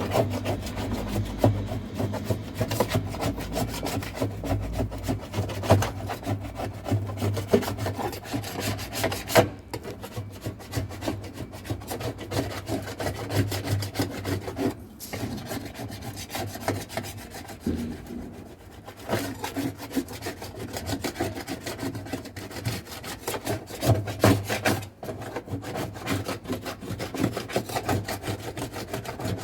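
Continuous rapid scrubbing strokes on a hard surface, scratchy and uneven, pausing briefly a few times.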